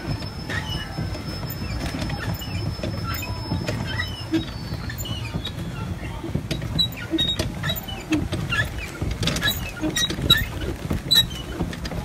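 Small boat moving on still water: a low steady rumble with frequent small clicks and light patter of water, and short high chirps throughout. A thin steady high tone sounds for the first four seconds or so.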